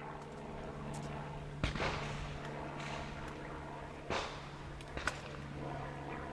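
Three faint, sharp cracks of distant shotgun fire over a steady low hum, about two, four and five seconds in.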